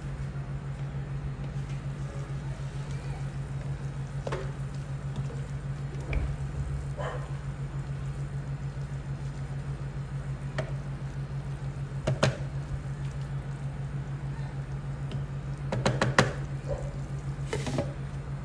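Chicken tinola simmering in a covered pot: scattered bubbles pop and gurgle now and then over a steady low hum, with a short flurry of pops near the end.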